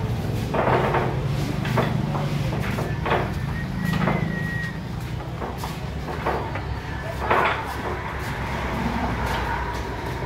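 Billiard balls clacking and cues striking at several pool tables: scattered sharp knocks a second or so apart over a steady low hum.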